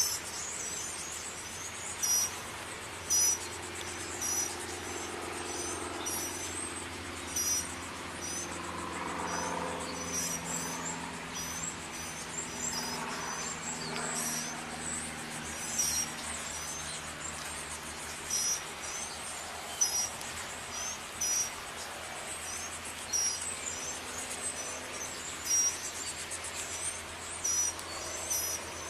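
Insects chirping: short high-pitched chirps every one to two seconds over a steady background hiss, with a faint low murmur in the middle stretch.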